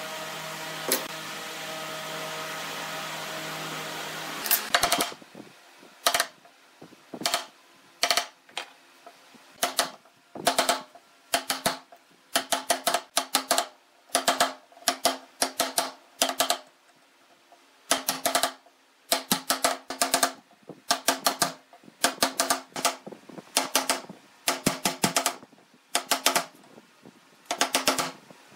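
A steady hum for the first few seconds, then a wooden mallet striking a chisel as a mortise is chopped into the wood: sharp knocks in quick groups of two to four, about one group a second, each with a brief ring.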